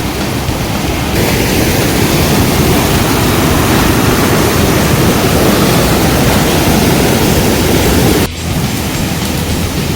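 Loud, steady rushing noise. It grows louder about a second in and changes abruptly about eight seconds in, where the footage is cut.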